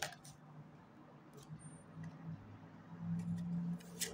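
Quiet pause with a faint low hum and a few soft clicks, one at the start and a pair near the end.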